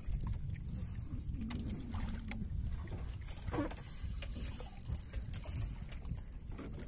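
Wind rumbling on the microphone and water lapping against a small outrigger fishing boat, with scattered faint clicks.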